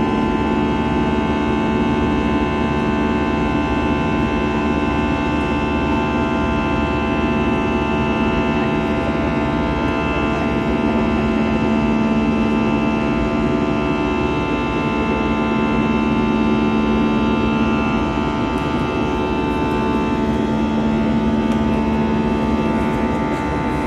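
A steady mechanical hum made of several unchanging tones over a constant low rumble, with no knocks or changes in speed.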